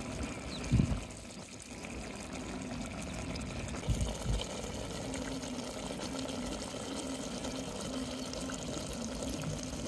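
Crab and tomato stew simmering and bubbling in an aluminium pot, a steady liquid bubbling. Two brief low thumps about a second in and about four seconds in.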